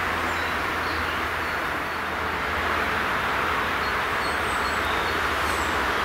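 Steady rushing outdoor background noise with a low hum underneath, and a few short, faint bird chirps scattered through it.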